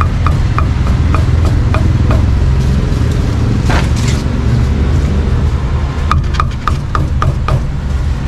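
Cleaver chopping roast meat on a chopping block: short sharp knocks about three a second, pausing in the middle and resuming faster near the end. A steady low traffic rumble runs underneath, with a short rushing noise near the middle.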